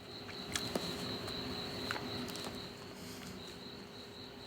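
Faint, steady, high-pitched insect trill with a few soft clicks.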